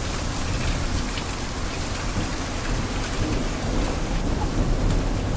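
Steady rushing roar of a large monsoon waterfall mixed with rain, with a low wind rumble underneath.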